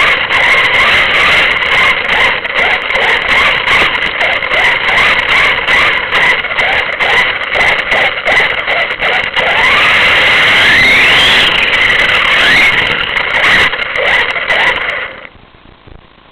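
Loud, crackling vehicle noise full of clicks and rattles. A squeal rises and falls a few times about two-thirds of the way through, and the noise cuts off suddenly near the end.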